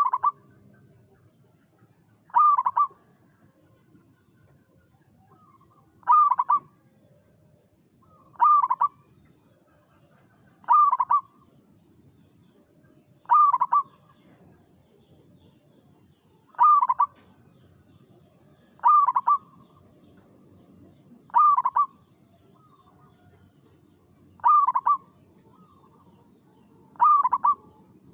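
Local zebra dove (perkutut) singing its short cooing phrase, repeated eleven times at an even pace of about one phrase every two and a half seconds.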